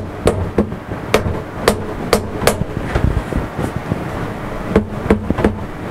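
Rubber mallet tapping an aluminium block down in a milling machine's vise: a run of quick taps, a pause, then three more near the end. The taps are settling the workpiece flat on its spacer before it is clamped tight. A steady background noise runs underneath.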